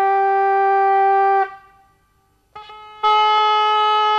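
Brass hunting horn blown in a long steady note that stops about a second and a half in, then a second long horn blast, slightly higher in pitch, answers from about three seconds in. Hunters calling one another by horn during a boar hunt with hounds.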